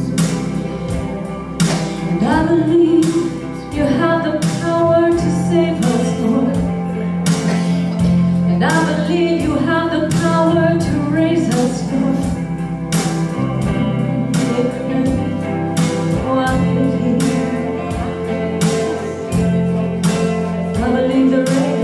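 Live worship music: women singing over an electric guitar, with low notes held beneath.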